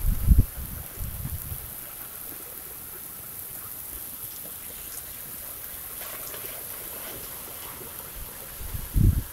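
Steady hiss of storm rain and running water, with gusts of wind buffeting the microphone during the first second or so and again near the end.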